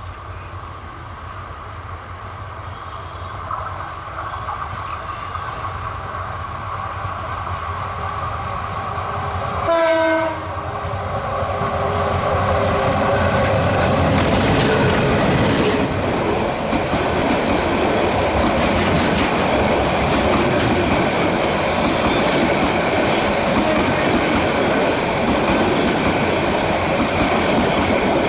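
A Bangladesh Railway diesel-electric locomotive approaches, its engine growing steadily louder, and gives one short horn blast about ten seconds in. It then passes close by, and the passenger coaches roll past with wheels clattering over the rail joints.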